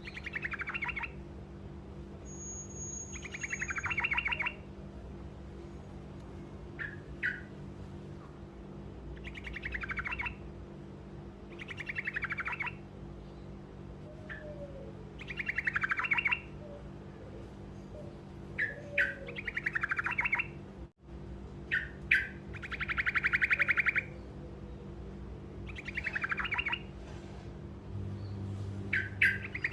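A truco songbird repeating short rolling trills, each about a second long and coming roughly every two seconds, with a longer, even trill a little past the middle. A steady low hum runs underneath.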